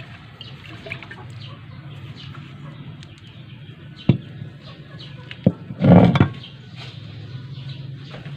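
Chickens clucking in the background over a steady low hum. Two sharp knocks come about four and five and a half seconds in, and a louder short cry about six seconds in.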